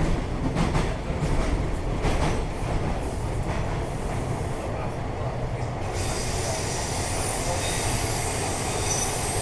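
Bombardier T1 subway train running on the rails, heard from inside the car: a steady low rumble with repeated clicks from the track. About six seconds in, a steady high hiss comes in abruptly and stays.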